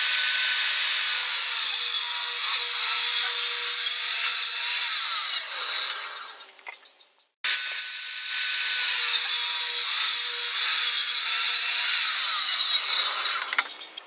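Portable jobsite table saw ripping plywood: a steady, loud whine of the blade cutting. It fades out about six and a half seconds in, then a second stretch of cutting starts abruptly about a second later and fades away near the end.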